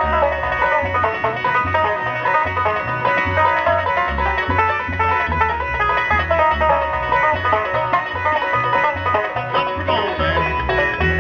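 Live bluegrass band playing an instrumental break, with banjo rolls over a steady bass beat and guitar.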